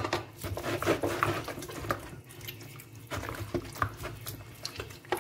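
Hands working an oil-and-spice seasoning paste into raw cut chicken: irregular wet handling noises with clicks and short scrapes, the loudest right at the start.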